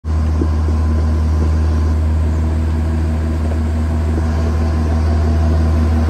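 Engine of a vehicle towing a wooden flatbed trailer, running at a steady low drone at constant speed over a gravel lane, with a few faint knocks from the trailer.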